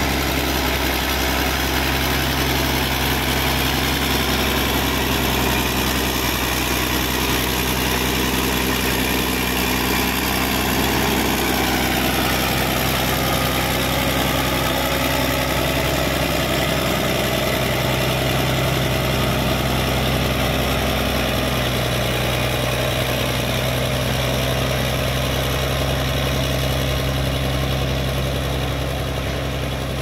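Caterpillar D6D bulldozer's six-cylinder diesel engine running steadily under load as the dozer pushes wet clay, its pitch shifting slightly about a third of the way in and growing a little quieter near the end.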